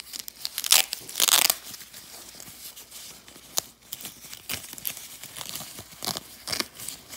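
Tissue paper crinkling and tearing as it is unwrapped by hand. Two loud rustles about a second in, then softer crinkles and rustles at intervals.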